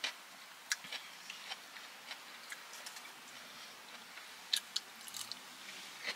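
Close-miked eating sounds: soft chewing of a poke bowl, with scattered light clicks of a fork against a clear plastic takeout bowl. A few sharper clicks come about four and a half to five seconds in.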